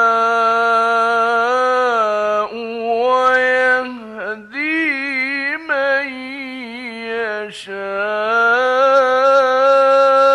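A man's voice in melodic, chanted Quran recitation, holding long ornamented notes that waver and glide in pitch, with a few brief breaks for breath.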